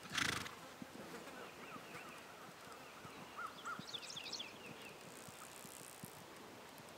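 Quiet outdoor ambience: birds chirping and insects buzzing, with faint irregular thuds of a horse's hooves on grass and dirt as it is ridden. A short rush of noise sounds right at the start.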